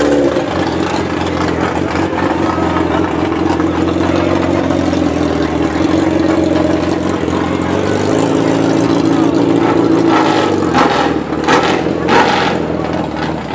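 Engine idling steadily. About eight seconds in it revs up, holds for a couple of seconds and drops back. Near the end a few short, sharp sounds come over it.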